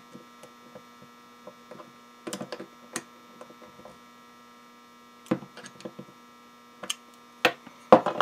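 Steady electrical mains hum, with scattered small clicks and taps as transistors are handled and fastened onto a metal heat sink; the knocks grow louder near the end.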